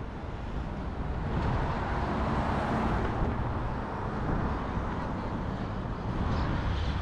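City street traffic: cars passing on the road, with the noise swelling about a second in and again near the end.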